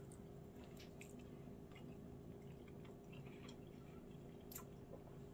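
Near silence: room tone with a faint steady hum and a few faint, scattered clicks.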